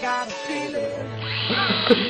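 Small electric motor of a home-built bottle zeppelin model starts whirring about a second in and runs steadily, with two sharp clicks near the end, after the background music trails off.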